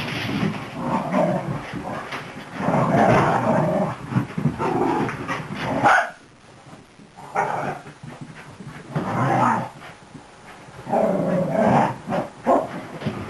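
Dogs growling and barking in rough play, including a beagle-mix puppy, in repeated loud bursts with short lulls about six and ten seconds in.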